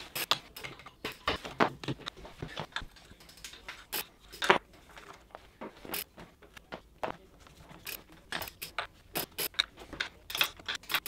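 Irregular metallic clicks and clinks of a hex key and metal parts as a bicycle crank arm is fitted and its pinch bolts are tightened. The loudest click comes about four and a half seconds in.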